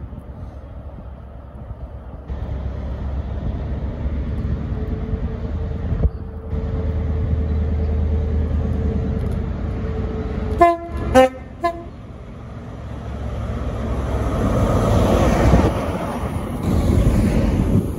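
A Network Rail test train led by a diesel HST power car approaching and passing, its engine running with a steady low drone that grows louder as it nears. About ten and a half seconds in it sounds its horn in a few short blasts, then the power car and coaches pass close with the engine and wheel noise at their loudest.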